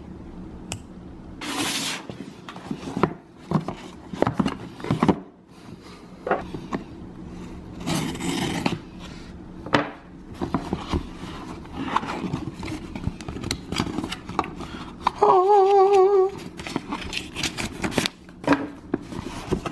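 Pocketknife blade slitting packing tape on a cardboard shipping box, then the box being opened and its paper inserts handled, in a string of short scrapes and paper rustles. A brief wavering tone sounds about fifteen seconds in.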